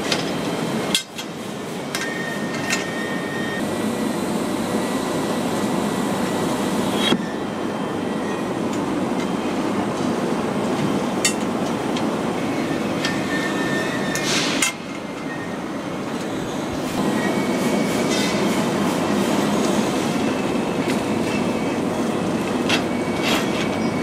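Steady rattling run of a wire-mesh furnace conveyor belt and factory machinery, with occasional sharp metal clinks as aluminium condensers are set down on the belt. The noise shifts abruptly a few times, about a second in, near 7 seconds and near 15 seconds.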